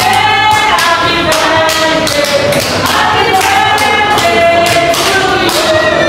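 A group of Cold Stone Creamery staff singing their birthday song in unison, with held notes moving from pitch to pitch. A steady beat of sharp hits, about two or three a second, keeps time under the voices.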